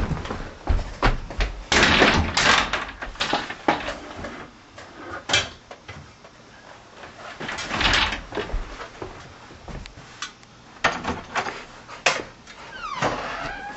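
Scattered knocks and clicks with short bursts of rustling, then a door being opened near the end.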